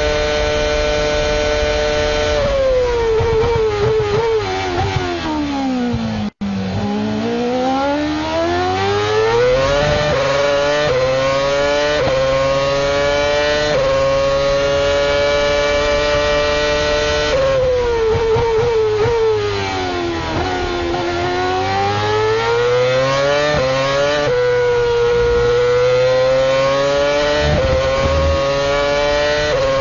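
Onboard sound of the 2.4-litre Renault RS27 V8 in a 2012 Lotus E20 Formula One car: a high, steady note at full throttle, then a steep fall through downshifts with quick throttle blips under braking. It then climbs again through a run of rapid upshifts, and the brake-and-accelerate cycle repeats. The sound cuts out for an instant about six seconds in.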